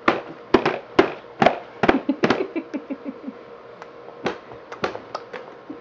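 Baby's mouth smacking while eating cereal: a string of sharp, loud smacks in quick irregular clusters, a pause, then a few more near the end.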